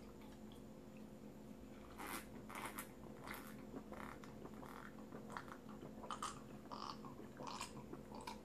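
Faint gulping and swallowing as a person drinks from a glass of iced drink, in a series of short, irregular sounds starting about two seconds in.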